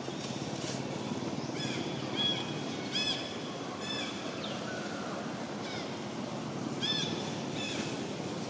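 Short, clear animal calls, each a quick rising-then-falling note, come in a bunch about two to four seconds in and again near the end. Under them runs a steady low outdoor rumble.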